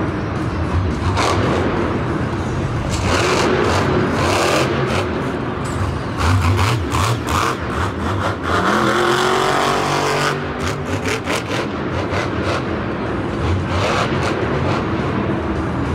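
Monster truck engines revving hard and running at high throttle, with the pitch climbing sharply about eight to nine seconds in and sharp crackles throughout.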